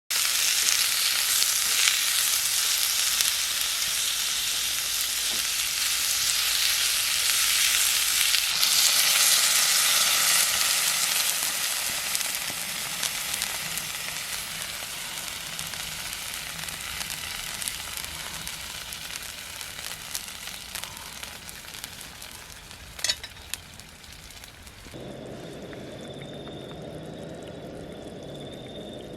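Food sizzling as it fries in a pan, loudest for the first ten seconds or so and then gradually dying down. A couple of sharp clicks come near the end, after which the sound changes to a lower, duller hiss.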